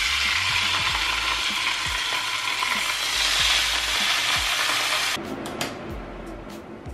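Raw pork chops sizzling loudly as they are laid into a hot, oil-sprayed frying pan, a dense steady hiss. It cuts off suddenly about five seconds in, leaving a quieter low hum and a few faint clicks.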